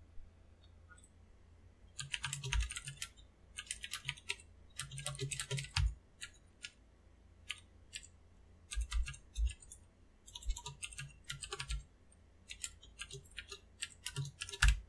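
Computer keyboard typing: short bursts of rapid keystrokes with brief pauses between them, and one louder keystroke near the end.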